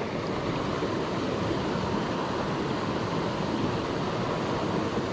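Steady, even sound of a small river's flowing water.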